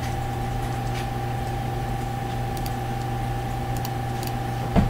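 Steady low hum with a few faint clicks of a computer mouse, and a short thump near the end.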